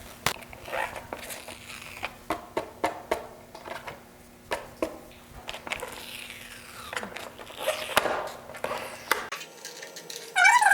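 Old decal crackling and tearing as it is peeled off a heated plastic motorcycle part, with scattered sharp clicks from handling. Near the end a louder, wavering squeal cuts in.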